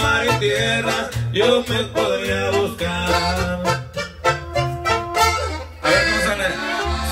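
Live Mexican regional band music: an upright bass and a tuba play the low bass line under a lead melody.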